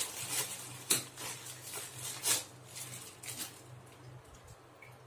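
Clear plastic bag of kerupuk (crackers) crinkling as it is torn open and a cracker pulled out, with a few sharp crackles, the clearest about one second and two and a half seconds in; the sound dies down toward the end.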